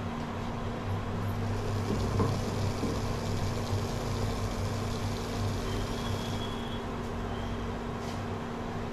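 Steady rumbling hiss of a lit stove burner under a pan of water and leaves being boiled down, with a low hum underneath.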